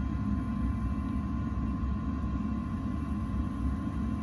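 Steady low rumble of a wood furnace's blower fan motor running, with a faint steady whine above it.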